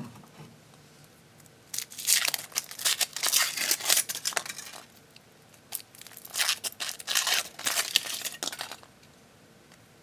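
Wrapper of a chocolate surprise egg being torn open and crinkled by hand, in two bouts of rustling a few seconds each.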